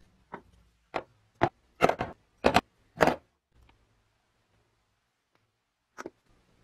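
Tape-gun parts (rubber and plastic rollers, a plastic wheel and a metal handle) being set down one by one into a clear plastic tub: about seven sharp knocks over the first three seconds, then one more near the end.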